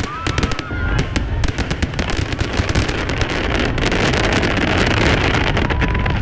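Aerial fireworks going off in quick succession: a rapid run of sharp pops and crackles over a dense, steady rumble.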